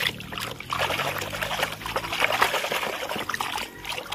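Soapy water in a plastic basin sloshing and splashing as a hand churns it to wash a toy under the surface. The sloshing eases off near the end.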